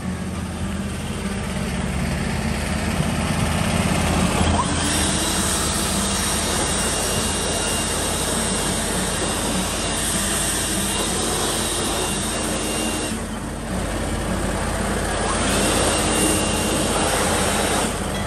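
Handheld leaf blower running steadily: a rushing air noise over a low hum, briefly easing off about thirteen seconds in.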